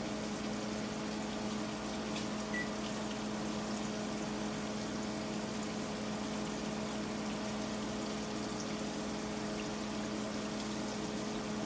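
Hybrid striped bass fillets frying in hot oil in a skillet: a steady sizzle, over a constant low hum from the kitchen exhaust fan.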